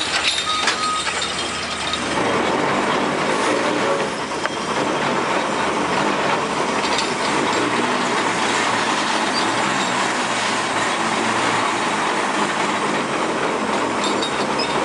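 Steam dragline at work: the drag cable runs over its sheaves and hauls the steel bucket on its chains through gravel. The noise is steady and dense, and it changes in character about two seconds in.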